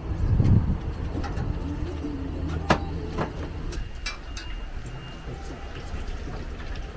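A steady low engine hum, with a few sharp clicks and taps over it.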